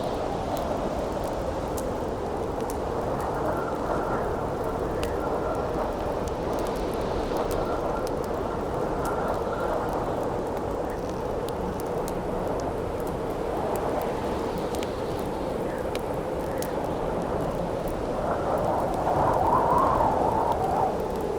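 Howling wind rushing steadily, with a faint whistle for several seconds and a louder gust near the end, over the scattered small crackles and pops of a burning campfire.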